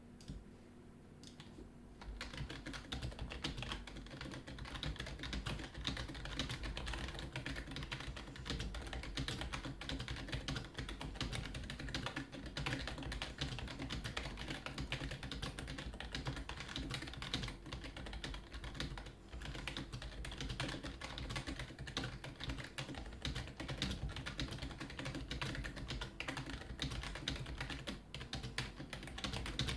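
Typing on a SteelSeries Apex 3 membrane keyboard: a few separate key presses, then from about two seconds in a fast, continuous run of key clicks and thuds.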